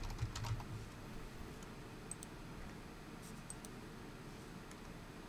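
Computer keyboard typing: a quick run of keystrokes in the first second, then a few scattered single clicks.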